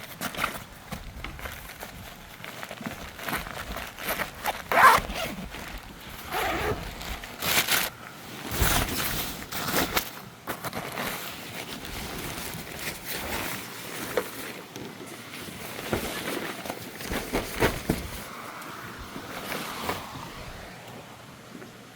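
Irregular rustling and scraping of things being handled, with scattered sharp clicks and knocks.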